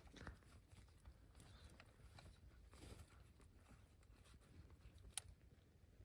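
Near silence with faint small clicks and rustles, and one sharper click about five seconds in.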